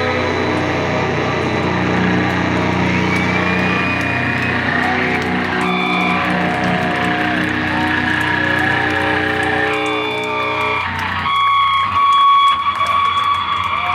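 Live doom metal band playing loud, with distorted electric guitars and bass holding long droning chords. The low end cuts out about eleven seconds in, leaving high, held, wavering guitar tones ringing on.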